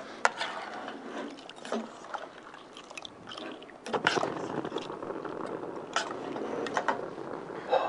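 Metal ladle stirring a creamy seafood soup in a stainless steel pot: scraping and stirring with several sharp clinks of the ladle against the pot.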